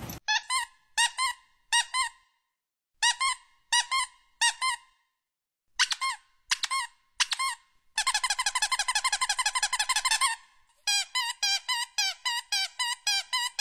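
Squeaky toy squeezed over and over: three sets of three sharp squeaks, then about two seconds of fast continuous squeaking, then quick repeated squeaks.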